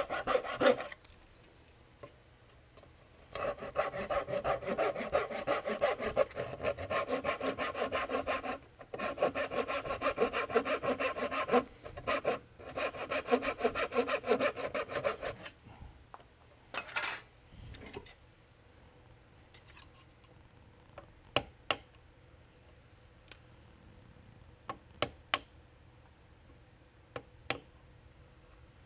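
Hand saw cutting through walnut stock wood in quick back-and-forth strokes, in four runs of a few seconds each with short pauses between, stopping a little past halfway. Then a few scattered light clicks and taps.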